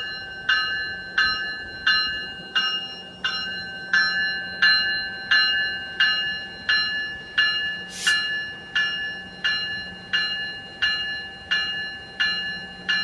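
Locomotive warning bell ringing steadily at about one and a half strokes a second, each stroke a clear ringing tone that fades before the next. A short hiss cuts in briefly about eight seconds in.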